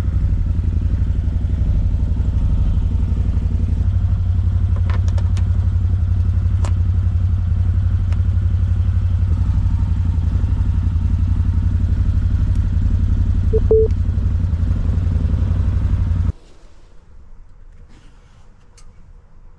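CFMoto Zforce 800 Trail UTV engine running steadily at idle, a loud, even, low pulsing, which stops suddenly about 16 seconds in.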